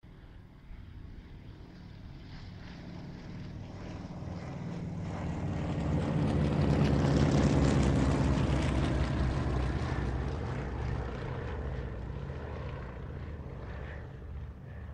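Two Cessna 195 light planes flying past together, their radial engines and propellers droning. The sound builds steadily to a peak a little past halfway, then fades away.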